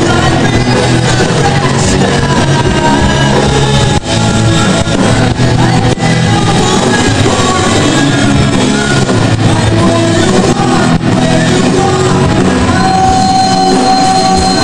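Live rock band playing loud, with guitars, drum kit and sung vocals. The sound cuts out for an instant twice, about four and six seconds in.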